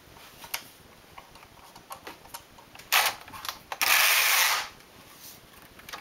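Knitting machine carriage sliding across the metal needle bed, knitting a row on all needles. There is a short burst about three seconds in, then a longer pass of nearly a second starting just before four seconds.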